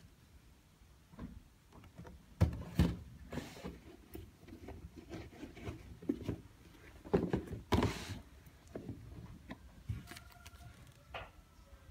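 Cardboard shoe box being handled and opened: a string of knocks and scrapes of the box and lid, with some rustling, loudest about seven to eight seconds in.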